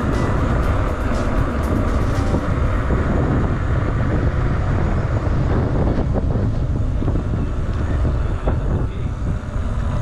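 Steady wind rumble on the microphone with tyre noise from a Canyon Stoic 2 hardtail mountain bike rolling fast downhill, and a few light rattles in the first couple of seconds.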